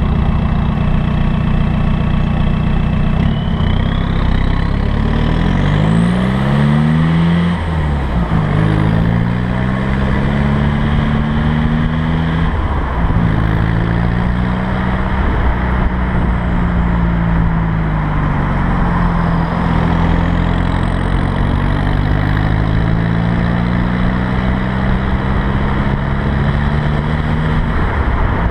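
A 2003 VW Jetta TDI's straight-piped 1.9 L four-cylinder turbodiesel idles, then pulls away about three seconds in. It accelerates through two upshifts, the note rising steeply and dropping at each change, while a high turbo whistle rises in pitch. It then cruises, the engine note slowly falling and rising again.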